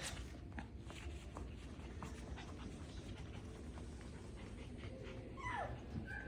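Young Biewer Terrier puppies playing, with light scattered taps and scuffs, and one short whimper that falls in pitch near the end, followed by a brief high squeak.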